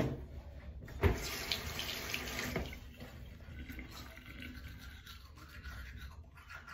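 Bathroom sink tap turned on about a second in and running for about a second and a half, then going off, followed by faint scrubbing of a toothbrush.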